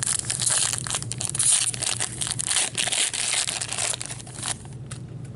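Plastic trading-card pack wrapper crinkling and crumpling under gloved hands, a dense crackle that stops about four and a half seconds in, with a few faint clicks after.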